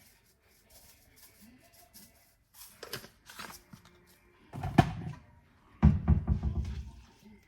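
Kitchen handling noises while seasoning meat: a few light clicks, then a short heavy knock and, about a second later, a run of rapid knocks and bumps lasting about a second.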